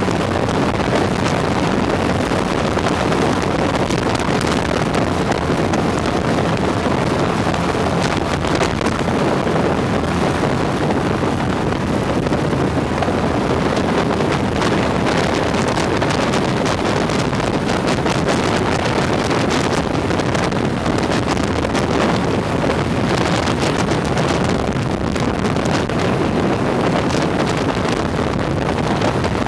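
Twin engines of a Lockwood Aircam open-cockpit plane droning steadily in flight, with heavy wind rushing over the microphone.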